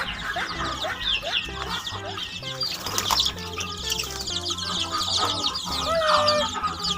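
Chickens clucking, with many rapid high chirps throughout, over background music.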